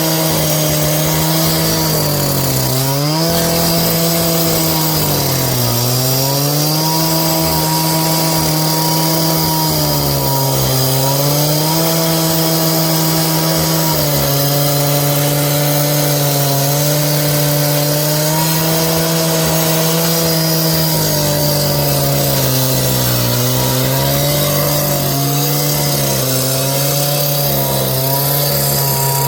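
A power saw running continuously, its motor pitch sagging each time it bites into the work under load and climbing back as it frees, several times over.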